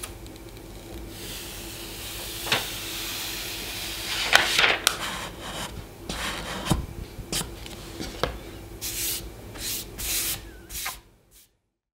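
A flat card rubbing and scraping across an iPad Pro's glass screen: a steady hissing scrape at first, then a series of short, sharp swipes and taps that stop abruptly near the end.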